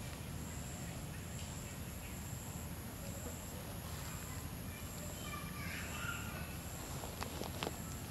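Outdoor forest ambience: a steady low rumble with a high note pulsing about once a second. A brief higher-pitched call comes around six seconds in, and a few sharp clicks follow near the end.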